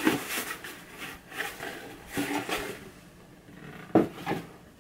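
Cardboard box being handled and folded, with rubbing and scraping, then a sharp knock about four seconds in as it is put down.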